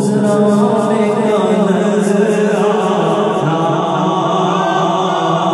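A man singing an Urdu naat into a microphone, drawing out long, gently wavering melodic notes.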